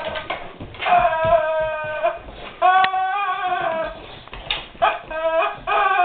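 German Shepherd dog whining over a squeaky toy: several drawn-out, high-pitched whines, each about a second long.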